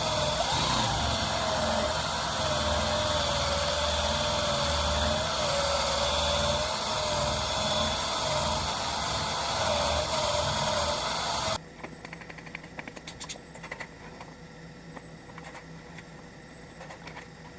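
Workpro 12-volt cordless 3-inch polisher running, its motor tone wavering slightly in pitch, then switched off abruptly about two-thirds of the way through. Light clicks and handling noises follow.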